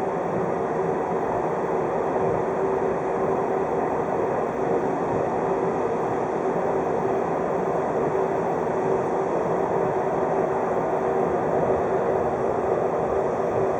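Steady running noise of a 583 series electric train heard from inside the carriage: an even rumble of wheels on rail with a constant hum held throughout.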